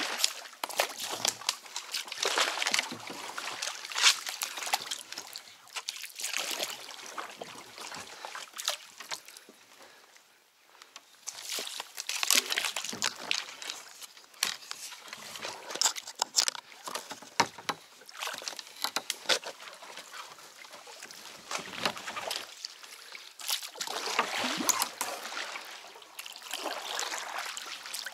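Water sloshing and splashing around a small boat being worked through snags, in irregular bursts with scattered clicks and knocks; it eases off to a lull about ten seconds in, then picks up again.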